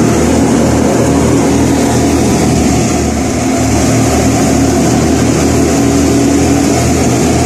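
Wheat threshing machine running steadily, a constant loud mechanical drone over a low engine hum.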